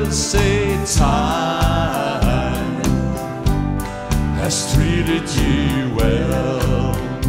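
Live country band playing: acoustic and electric guitars, bass guitar and keyboards over a steady beat, with a man singing lead.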